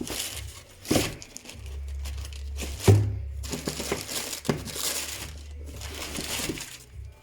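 Packaging crinkling and rustling as it is handled during unboxing, in repeated bursts. A few sharp knocks come through, the loudest about three seconds in.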